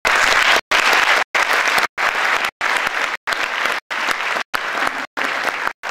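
Audience applauding, starting suddenly and loudly, easing off a little after about two seconds. The sound is cut by brief gaps of silence about every two-thirds of a second.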